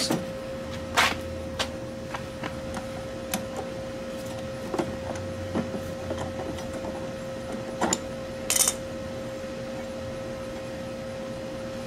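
Scattered clicks, knocks and rattles of hands handling the loose motor and blade on the underside of an upturned electric lawn mower, with two louder clacks about a second in and near the end. A steady hum runs underneath.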